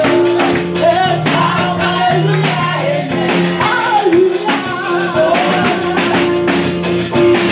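Church praise music: a woman singing a gliding melody over held chords and a steady percussion beat.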